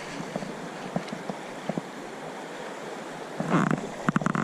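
Steady rush of flowing creek water, with a cluster of short clicks and knocks near the end.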